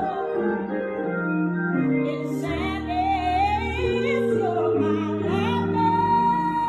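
Gospel song: sustained keyboard chords with a solo voice entering about two and a half seconds in, singing with vibrato and holding one long note near the end.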